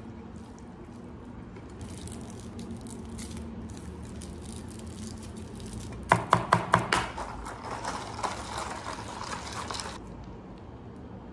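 Thin plastic bag rustling and crinkling as a plastic cup of iced drink is unwrapped and handled, with a quick run of five or six sharp crackles about six seconds in and softer crinkling for a few seconds after.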